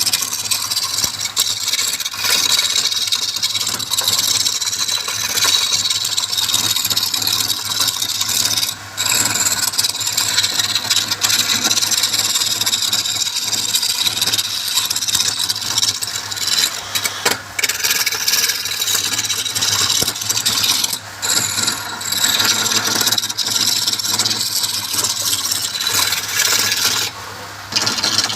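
Wood lathe running with a steady motor hum, while a turning tool scrapes and cuts the spinning wood in a continuous rasping hiss. The hiss lifts off briefly a few times and for a little longer near the end.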